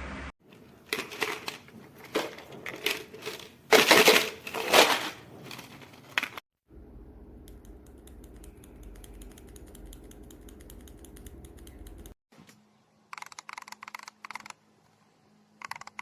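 Typing on a mechanical keyboard fitted with Fantasy Virus tactile switches: runs of keystroke clacks in several separate takes, the loudest strokes about four seconds in, with a much fainter stretch of typing in the middle.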